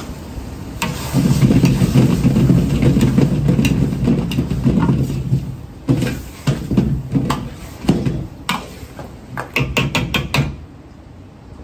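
A wok of tomato and egg being stir-fried over a gas wok burner, with the burner's low rumble running throughout. Early on the wok is shaken and tossed over the flame with a dense scraping noise. Then a steel ladle clanks and scrapes against the wok in quick runs of strikes, which stop near the end.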